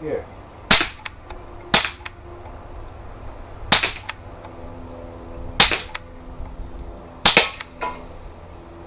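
AK47-replica CO2 BB gun firing .177 steel BBs: five sharp single shots spaced one to two seconds apart, most followed closely by a fainter click.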